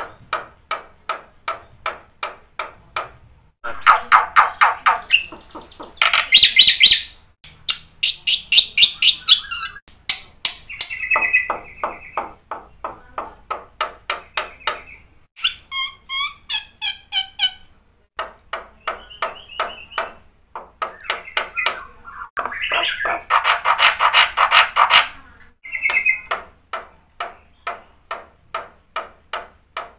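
Black-winged starling (jalak putih) singing without pause: runs of sharp repeated notes at about two to three a second, broken by louder trills and whistled phrases. The song is full of mimicked phrases of other birds.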